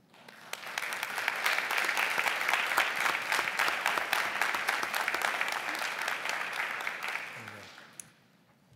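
Audience applauding, building up over the first second and dying away about eight seconds in.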